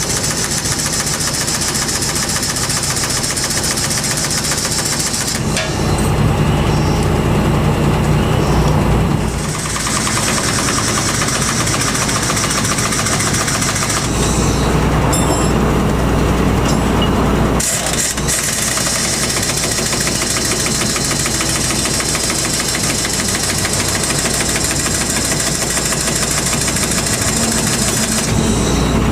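Motor vehicle engine running steadily with an even firing rhythm. The deeper engine sound grows louder twice, about six seconds in and about fourteen seconds in, each time for three to four seconds.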